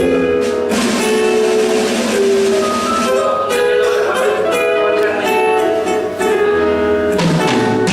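Live band music, a run of held melodic notes over the band, playing steadily without a break.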